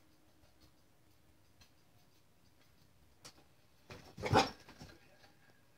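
A single short, low animal huff about four seconds in, with a couple of faint clicks before it.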